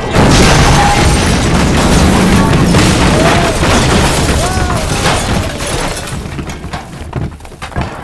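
Road roller smashing through a brick wall: a loud boom just after the start, then crashing and crumbling masonry for about five seconds, dying down near the end, with music under it.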